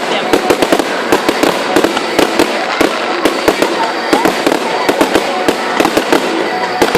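Aerial fireworks display going off in a dense, unbroken barrage of sharp bangs and crackles, several a second.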